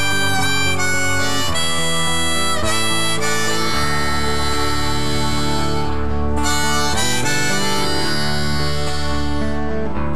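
Hand-held harmonica playing a melodic solo into the vocal microphone, sustained reedy notes over a live band's accompaniment with a steady bass.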